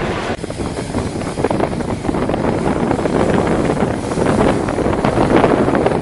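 Train running along the track, heard from an open window: a steady rumble with quick rattles and knocks from the wheels and carriage, and wind buffeting the microphone.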